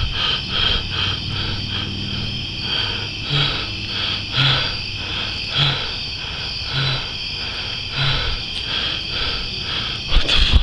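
A chorus of night insects chirping in a steady pulsing rhythm, about three pulses a second. Through the middle, a short low call repeats about once a second.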